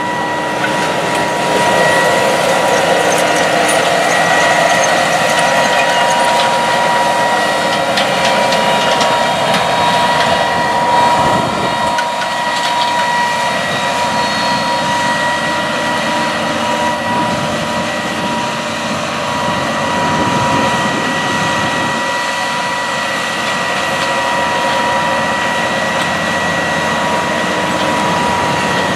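Case IH Steiger 420 four-wheel-drive tractor pulling a 16-row Kinze 3660 corn planter, the engine running under load with the planter clattering and a steady high whine over it.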